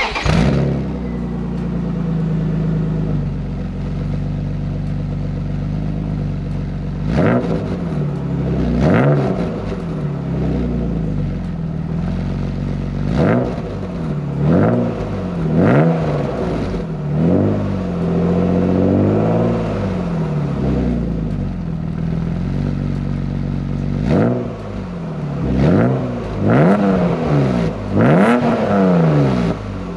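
BMW E36 M3 straight-six breathing through a newly installed UUC Corsa exhaust, heard at the tailpipes on its first start: the engine fires and settles into a steady idle, then is revved in a string of short throttle blips from about seven seconds in, each rising and falling in pitch.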